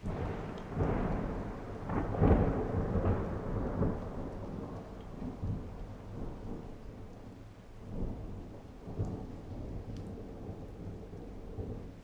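A thunderclap that breaks in suddenly and rolls on as a long rumble, loudest about two seconds in, with further swells of rumbling around eight and nine seconds before it fades.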